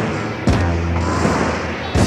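Abstract noise-rock from a 1983 cassette recording: a droning low bass tone with sharp, heavy percussive hits about half a second in and again at the end.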